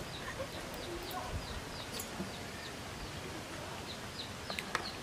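A bird chirping again and again in short falling notes, about two or three a second, over steady background noise, with a few sharp clicks of a metal spoon against a ceramic bowl, one about two seconds in and two near the end.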